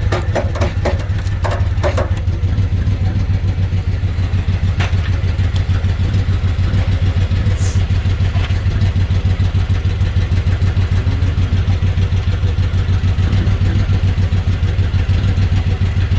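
An engine idling steadily with a fast, even pulse. A few light knocks come in the first couple of seconds.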